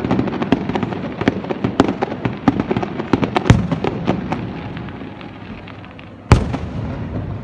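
Fireworks display: shells bursting in a rapid run of crackles and pops, which thins out after about four seconds. About six seconds in comes one single loud bang, which dies away.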